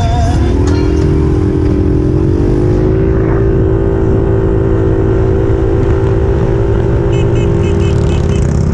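Quad (ATV) engine pulling away and speeding up, its note climbing over the first few seconds and then holding steady at cruising speed, under heavy wind rush on the microphone.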